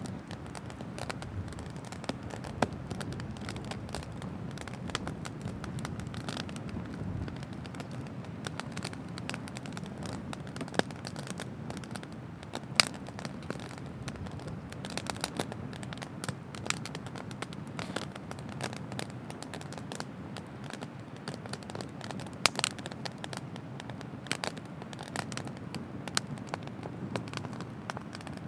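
Wood bonfire crackling, with scattered sharp pops from the burning logs over a steady low rush of noise; the loudest pop comes about halfway through.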